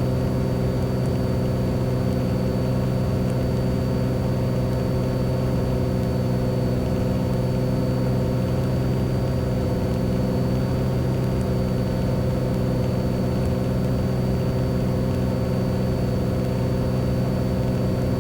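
Beechcraft Bonanza's piston engine and propeller droning steadily inside the cabin in flight, an even, unchanging tone with a thin high whine above it.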